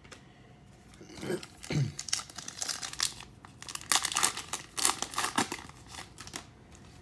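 Foil wrapper of a trading-card pack crinkling and tearing as it is opened, a run of crackles over several seconds.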